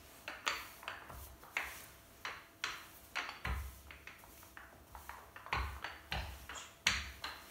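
Wooden rolling pin rolling out soft yeast dough on a floured worktop: a run of short, soft knocks and rubs with the strokes, with a few duller thumps in between.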